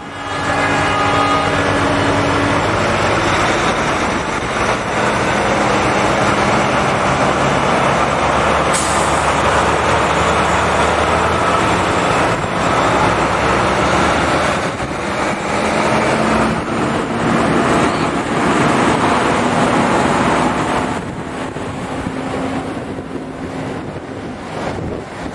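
Heavy diesel trucks running as they pass in a parade, a loud steady engine and road noise with a sudden hiss about nine seconds in. It eases off somewhat near the end.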